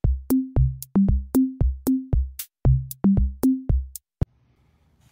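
Dancing cactus toy playing an electronic drum-machine beat of pitched bass-drum hits, about four a second. The beat stops abruptly about four seconds in, and a single click follows.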